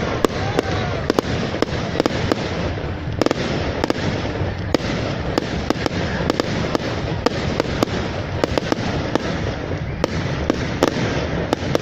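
Fireworks going off in a dense barrage: many sharp cracks and bangs, several a second, over a continuous rumble.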